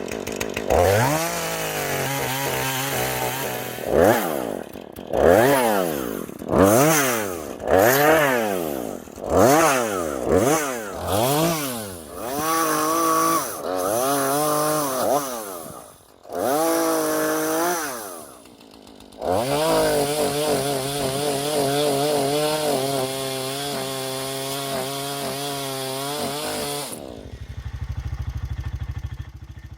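Chainsaw engine revving up and down in a string of short bursts, then held at full speed for about eight seconds before dropping back to idle near the end.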